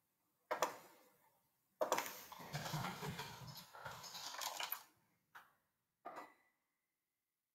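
Handling noise: a sharp knock, then about three seconds of clattering and rustling, then two short knocks.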